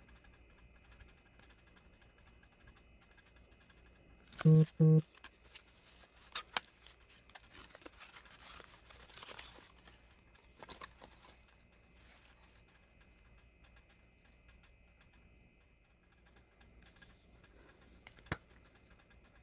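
A cardboard product box being opened and a dispenser taken out: scattered clicks, taps and rustling of packaging. Two short loud tones come about four and a half seconds in.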